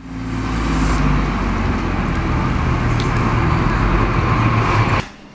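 City bus driving close past, its engine running steadily with most of the sound low; it cuts off abruptly about five seconds in.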